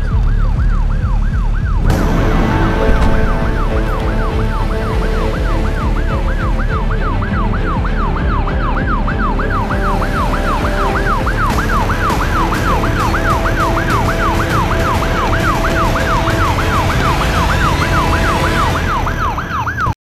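Emergency vehicle siren in a fast yelp, rising and falling about two and a half times a second, over sustained music. It cuts off abruptly near the end.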